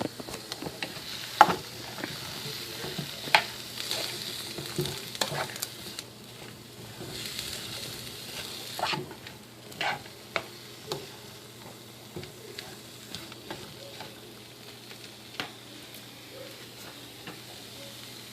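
Sliced broccoli, red cabbage and apple sizzling as they sweat down in a hot pot, with a utensil stirring and knocking against the pot from time to time.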